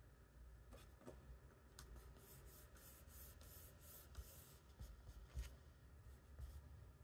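Faint scratching of a charcoal pencil on sketchbook paper: a quick run of short strokes from about two seconds in until past four seconds, with a few single strokes before and after.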